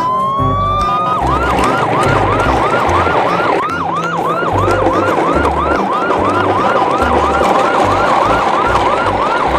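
Electronic police-style siren: one tone rises over about the first second, then switches to a fast wavering yelp, about three cycles a second, that runs on steadily. A low rhythmic beat sits underneath.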